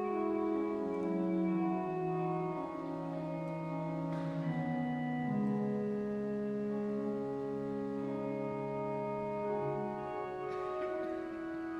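Pipe organ playing slow, sustained chords that change every second or two, the bass line stepping downward.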